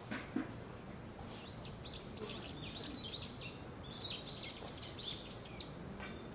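Small birds singing: a quick run of short, high chirping notes, each dipping in pitch, starting about a second and a half in and stopping shortly before the end, over a low steady background hum.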